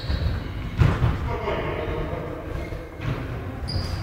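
A volleyball thudding on a gym floor, a couple of sharp thumps about a second in and another near the end, in an echoing sports hall.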